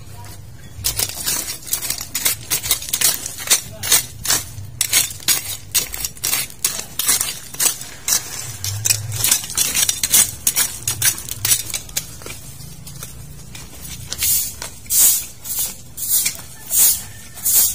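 Dry weeds and leaves crackling and rustling as they are pulled up and handled by hand, in quick irregular bursts. Near the end it changes to a run of evenly spaced rustles, about two a second.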